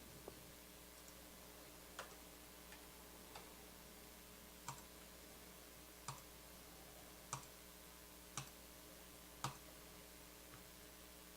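Near-silent room with a series of short, sharp clicks about a second or so apart at uneven spacing, the loudest near the end, with a few fainter ticks between them.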